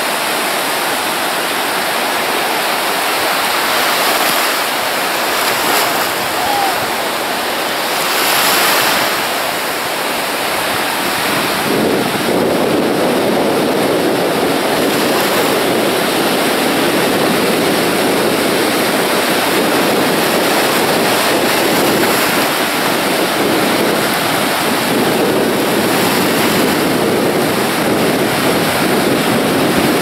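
Surf breaking and washing up a shallow sandy beach, a steady rush of waves that grows fuller from about twelve seconds in.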